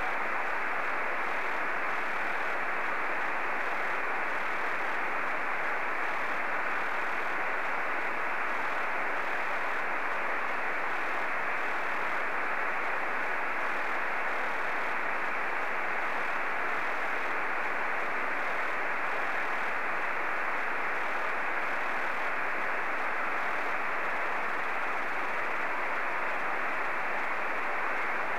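Steady hiss from a Yaesu FT-897 receiver in SSB mode, tuned to the FO-29 satellite's 435.8–435.9 MHz downlink through a homemade 70cm quadrifilar helix antenna. The hiss stops sharply above about 3 kHz, and no clear signal stands out above it.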